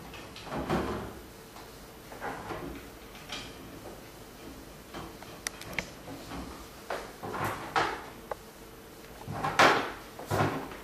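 Parts being slid and knocked along an aluminium T-slot extrusion rail by hand: irregular scrapes and clunks with a few sharp clicks, the loudest clunk near the end.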